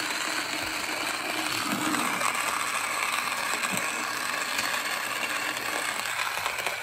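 Wirsh portable electric conical burr coffee grinder running steadily, its burrs grinding a load of coffee beans at a medium setting.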